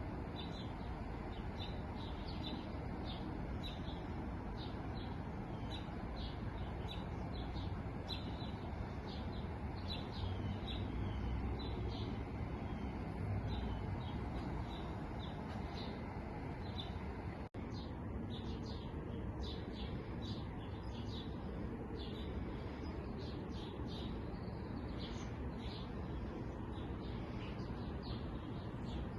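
Many small songbirds chirping and twittering continuously in short, quick calls, over a steady low background hiss. The sound cuts out for an instant a little past halfway.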